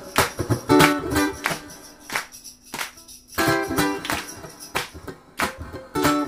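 Solo ukulele strumming a bright, rhythmic instrumental, with an audience clapping along in time, about two claps a second. The playing briefly drops out near the middle, then the strumming comes back in.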